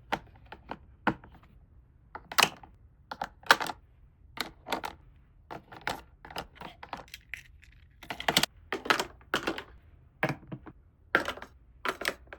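Small hard plastic toy pieces clicking and tapping as they are handled and set down, in irregular sharp clicks, some in quick pairs or clusters.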